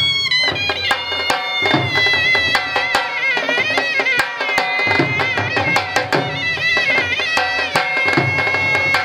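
Shehnai playing a bending, sliding melody over quick dhol drum beats.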